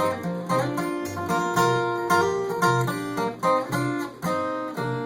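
Live band playing an instrumental break of a country song: a plucked guitar melody over bass guitar, with no singing.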